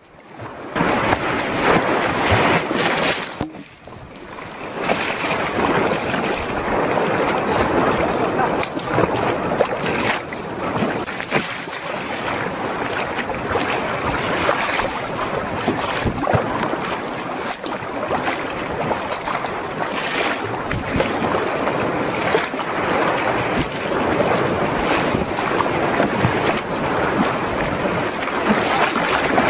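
Choppy sea water splashing and sloshing around a sea kayak, with wind buffeting the microphone. The sound dips briefly about four seconds in, then comes back.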